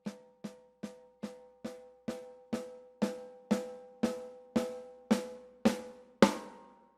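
Snare drum of a Janara Slim Witch kit struck with single strokes, about two a second, each hit ringing out with a clear tone before the next. The strokes grow steadily louder.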